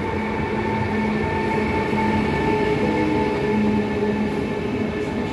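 Train at a station platform running: a steady rumble with a held humming tone and a lower hum that comes and goes.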